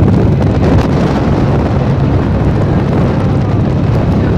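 Strong wind buffeting the microphone on a moving ferry's open deck, over the low steady hum of the ferry's engines.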